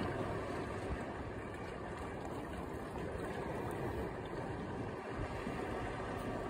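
A steady rumbling noise with a hiss over it, even throughout.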